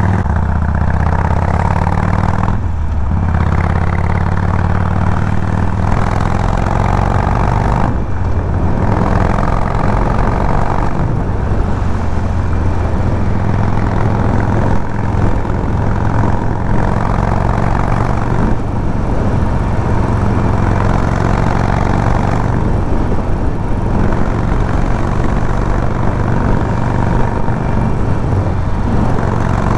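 Harley-Davidson Sportster 1200 Forty-Eight's air-cooled V-twin running steadily while being ridden. The engine sound dips briefly twice, about three and eight seconds in.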